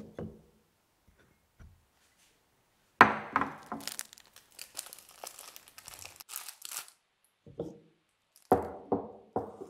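Kitchen handling sounds: a sharp knock about three seconds in, then a foil tea packet crinkling and rustling for a few seconds, and a few knocks near the end. The knocks fit the French press's glass beaker and plastic plunger lid being taken apart and set down on a wooden board.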